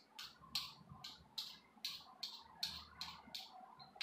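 Hand-held vegetable peeler scraping strips of skin off a raw potato, short quick strokes about three a second.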